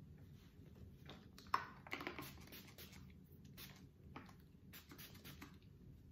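Faint scattered clicks and rustles of a small plastic spray bottle and a plastic bag being handled, with the sharpest click about one and a half seconds in.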